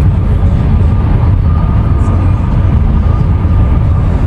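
Steady road noise inside a moving car's cabin: a deep engine and tyre rumble with tyre hiss from wet pavement.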